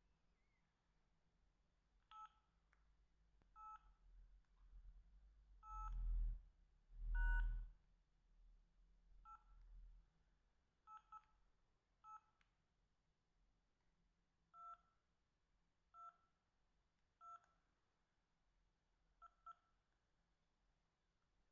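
Samsung SH-710 mobile phone keypad beeping as its keys are pressed: a dozen or so short two-tone key beeps at irregular intervals while its menus are browsed. Two louder, dull low knocks, the loudest sounds here, come a little before the middle.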